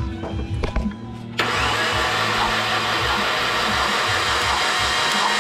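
A 2011 Subaru WRX's turbocharged flat-four is cranked over on the starter for a compression test: a loud, steady whirring hiss starts suddenly about a second and a half in. The gauge reads nothing, which the owner puts down to the gauge not being threaded all the way into the spark plug hole.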